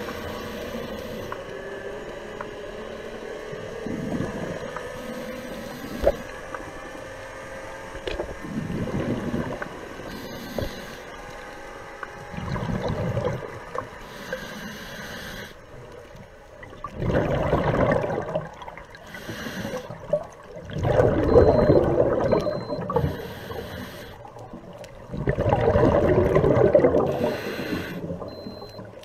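Scuba diver breathing through a regulator underwater: a burst of exhaled bubbles every few seconds, with short hissing inhalations between, the bursts louder in the second half.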